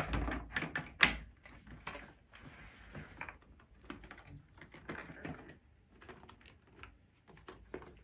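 Hard plastic clicks and knocks from a Dyson Big Ball Allergy 2 canister vacuum, switched off, as its clear dust bin is unlatched by its button and lifted off the body. The sharpest click comes about a second in, followed by lighter clicks, rattles and rubbing of plastic parts.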